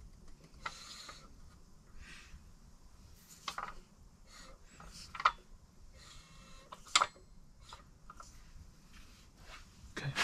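BMW crankshaft being turned slowly by hand in the bare engine block on its two end main bearings: faint rubbing, broken by a few sharp metallic clicks and knocks, the loudest about seven seconds in.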